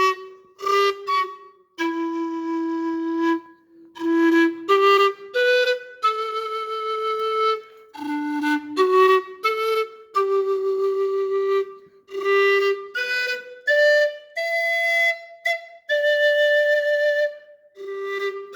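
Andean siku (zampoña), a bamboo panpipe, played solo: a slow melody of held, breathy notes, each blown separately, with short gaps between them.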